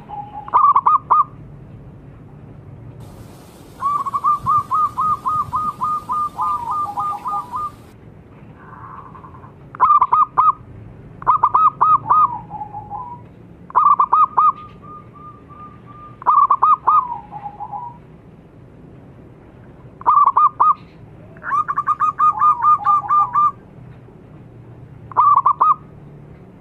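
Local zebra doves (perkutut) cooing: about nine phrases of quick, repeated notes, each ending in a lower falling note. Several birds call together, overlapping in two of the longer phrases. A low steady hum runs underneath.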